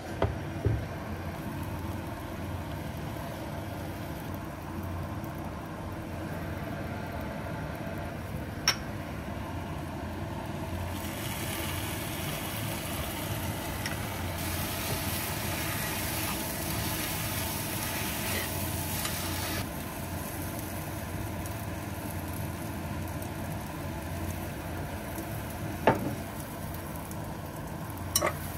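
Fish cake strips frying in a hot skillet, with sharp clicks of a utensil against the pan. About a third of the way in, a hissing sizzle rises as soy sauce goes into the pan, grows louder, then cuts off suddenly just after the middle. A steady low hum runs underneath.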